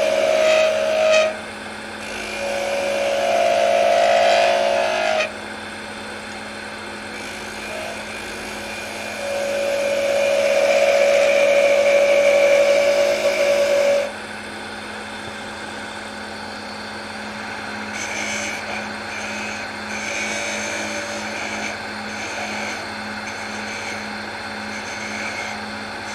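Wood lathe running with a steady hum while a turning tool cuts the spinning wood, removing waste. There are three louder cutting passes in the first half, the longest from about nine to fourteen seconds in, then lighter cutting.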